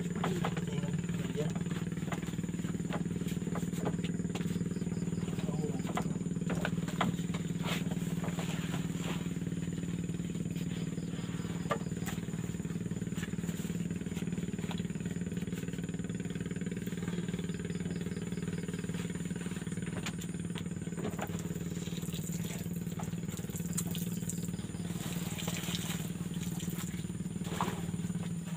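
A steady, unbroken low engine drone, with a thin steady high tone above it and a few faint clicks.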